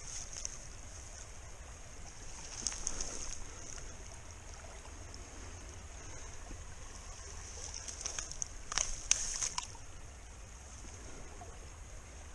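Steady flow of a river, with a hand rummaging through wet grass and weed at the water's edge. Brief rustling and splashing comes about three seconds in and again around nine seconds.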